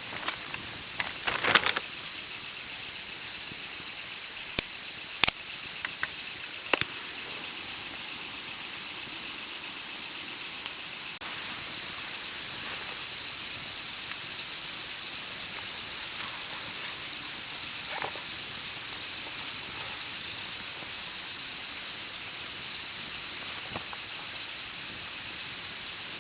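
A steady high-pitched insect chorus drones on unbroken over a light hiss, with a few sharp clicks in the first seven seconds.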